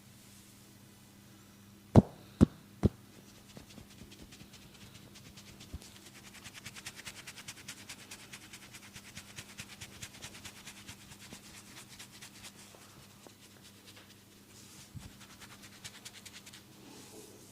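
Head massage: three loud sharp cracks about two seconds in, each a fraction of a second apart, then a long run of fast, light crackling clicks from the barber's hands working through the hair, fading out after about ten seconds.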